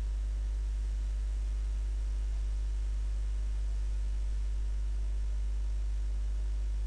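Steady low electrical hum with a faint hiss underneath: the microphone's mains hum and noise floor, with nothing else happening.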